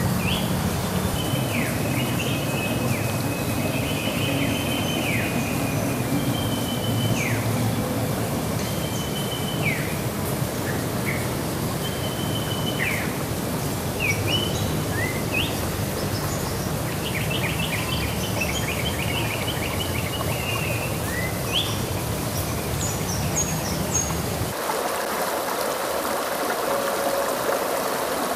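Shallow rocky stream flowing steadily, with birds calling over it in short repeated whistles and a quick trill. About 25 seconds in it cuts to a closer, brighter rush of water over rapids.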